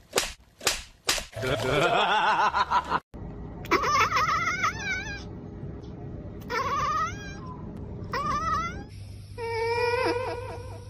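A domestic cat meows: three long, wavering calls that bend up and down in pitch. They are preceded by three sharp knocks and a person's wavering shout. Near the end comes a steadier cry over a low hum.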